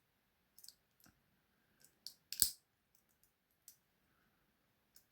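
Small irregular metal clicks and scrapes of two wire picks working the levers inside a British 2-lever padlock, with one louder click about two and a half seconds in.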